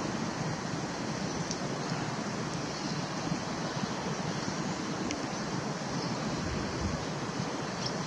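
Steady rushing outdoor background noise, with a few faint short high ticks.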